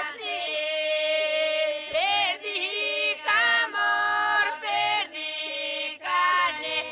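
Group of women singing unaccompanied, an Epirote polyphonic folk song: a steady held drone under a higher melody line, sung in phrases with short breaks between them.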